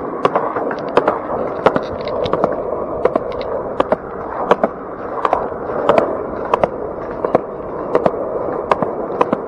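Skateboard rolling on a concrete driveway: a steady rumble from the wheels, with sharp clacks, roughly one or two a second, as they cross the joints in the slabs.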